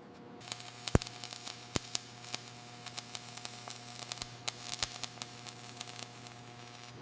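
Irregular sharp crackles and clicks over a steady electrical-sounding hum.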